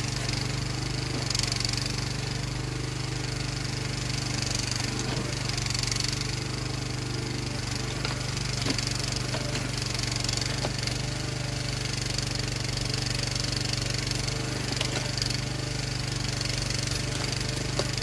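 The Jansen MB-300 mini backhoe's engine runs steadily while its hydraulic bucket digs into soil, with a few scattered clicks and knocks.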